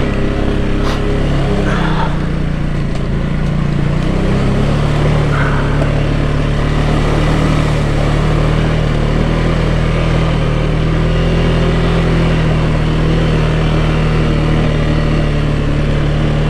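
Can-Am Outlander 700 ATV's V-twin engine running steadily while riding along a trail, its pitch shifting between about two and five seconds in, then holding even.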